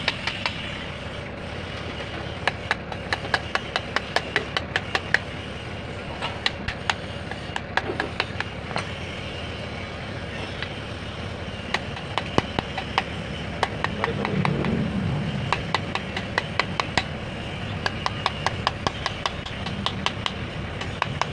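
Quick, light hammer taps on the metal of a 24-volt starter solenoid, coming in runs of several taps a second with pauses between, over a steady low rumble.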